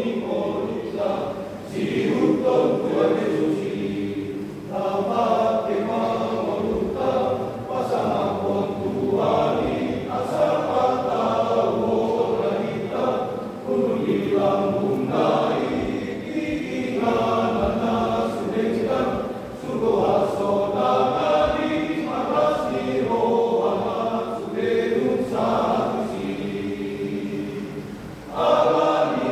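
Men's church choir singing together, phrase after phrase, with short breaks between phrases.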